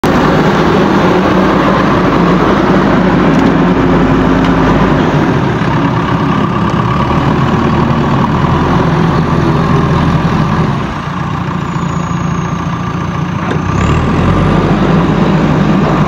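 JCB backhoe loader's diesel engine running as the machine works its front loader bucket. The engine sound drops off a little about eleven seconds in and picks up again about three seconds later.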